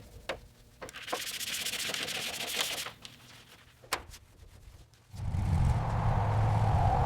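Several sharp clicks and knocks and a stretch of hissing, then, about five seconds in, a steady low engine rumble starts up: the restored 1945 Chevrolet's engine running.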